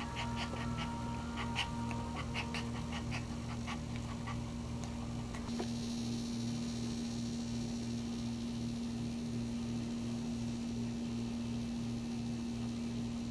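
Maltese in labour whimpering in a run of short, high squeaks, which die away about four to five seconds in. A steady electrical hum runs underneath throughout.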